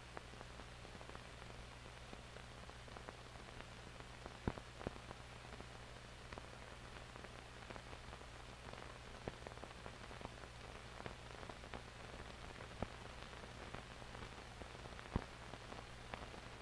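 Faint surface noise of an old film soundtrack under silent end credits: a steady hiss and low hum, with scattered crackles and pops. The loudest pops come about four and a half seconds in and again near the end.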